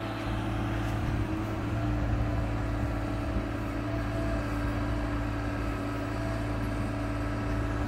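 Mini excavator's diesel engine running steadily as it works, an even hum with a constant pitch.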